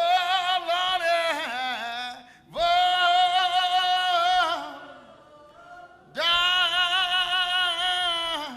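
A single voice singing unaccompanied, three long phrases of held, wavering notes with short breaths between them.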